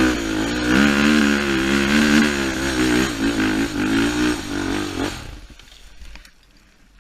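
Off-road vehicle engine revving, its pitch rising and falling as the throttle works, until it stops abruptly about five seconds in.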